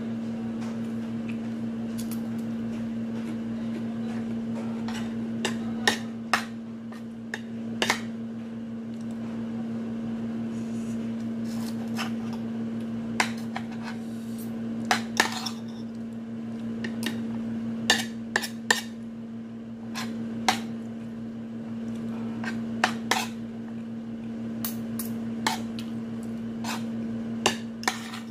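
Metal cutlery clinking and scraping against a plate in sharp, irregular strikes, over a steady low hum.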